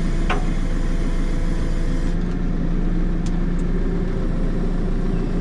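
Diesel engine of a JCB 3CX backhoe loader running steadily, with a brief click about a third of a second in.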